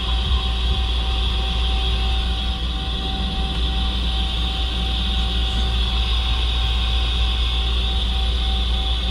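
Steady machine hum of a powered-up Mazak CNC lathe: a low drone with a constant thin tone and a high hiss over it, no cutting.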